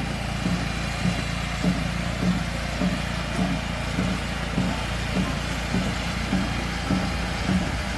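An engine running steadily, with a regular low pulse a little under twice a second.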